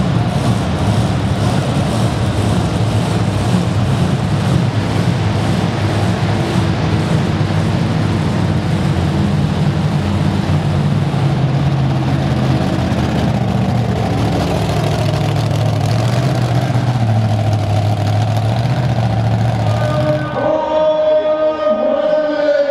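Raminator monster truck's Hemi V8 engine running hard and revving under racing throttle. About 20 seconds in, the engine noise gives way abruptly to a steady whine that drops in pitch near the end.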